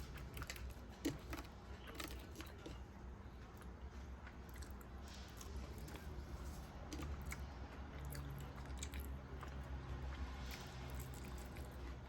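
A person chewing and biting into food close to the microphone, with irregular crunchy clicks and a sharp click about a second in, over a steady low hum.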